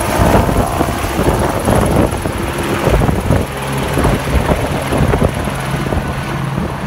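Helicopter flying overhead and moving off, its rotor beating steadily with a steady high whine above it, easing off slightly near the end as it draws away.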